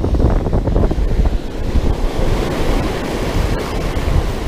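Ocean surf breaking and washing up the beach over the sand, with wind rumbling on the microphone.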